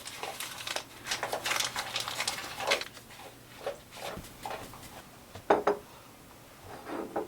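A utensil clinking and scraping against a saucepan while Sure-Gel pectin is stirred into strained syrup: a quick run of clicks for about the first three seconds, then a few separate knocks.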